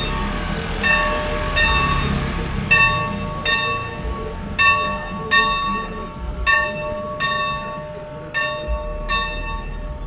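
Bells ringing in a steady repeated pattern, about three strokes every two seconds, each stroke ringing on with several overtones.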